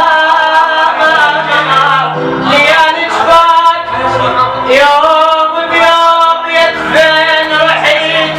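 Male voice singing an Iraqi mawwal in long, bending held notes over musical accompaniment.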